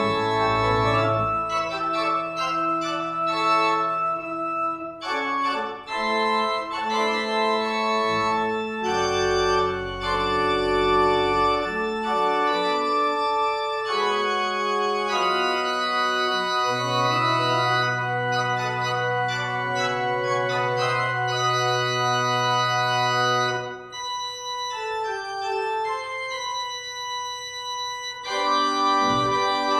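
Church organ playing slow sustained chords over long held bass notes, thinning to a softer passage about three-quarters of the way through before swelling fuller again near the end.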